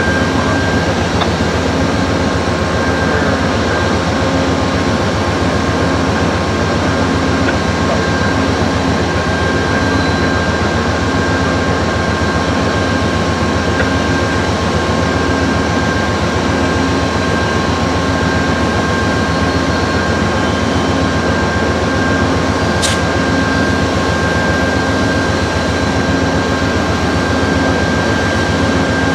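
Amtrak diesel locomotive idling with its passenger train standing at the platform: a steady engine drone with two constant whining tones above it. A single sharp click about three-quarters of the way through.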